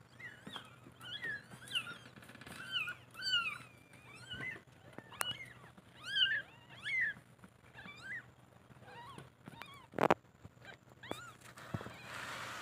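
Newborn kittens mewing: many short, high-pitched calls that rise and fall, one after another. A single sharp knock sounds about ten seconds in.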